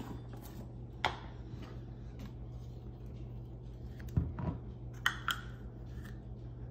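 A few faint taps and scrapes of a spoon scooping peanut butter into a dry measuring cup: once about a second in, then a small cluster around four to five seconds in, over a steady low hum.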